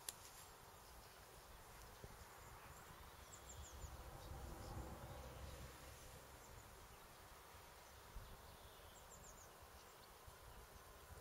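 Near silence: faint outdoor ambience, with a soft low rumble swelling and fading about four to six seconds in and two brief clusters of tiny high chirps.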